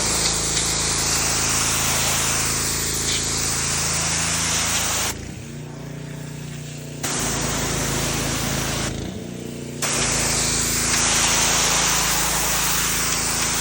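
Gas-powered Mi-T-M pressure washer running: the engine drones steadily while the water jet from the spray wand hisses in three long spells, breaking off briefly about five and nine seconds in.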